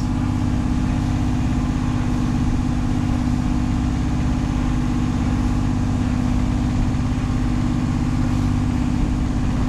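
Inboard engine of a Catalina 30 sailboat running steadily while the boat motors along, a constant even hum with no change in speed.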